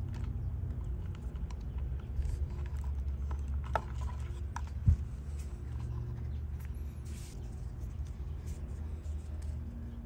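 Small clicks and handling noise of a wire crimping tool and insulated crimp connectors being worked onto wires, with one sharp knock about five seconds in, over a steady low hum.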